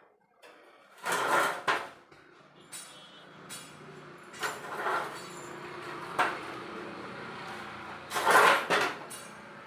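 Handling noises: a series of separate scrapes and knocks, the loudest about a second in and again near the end, with a faint steady hum in the middle.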